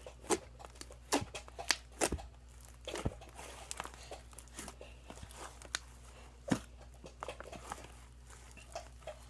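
A large mass of mixed slime being kneaded and stretched by hand, giving irregular sticky clicks and pops. They are busiest in the first few seconds, with one sharp pop past the middle.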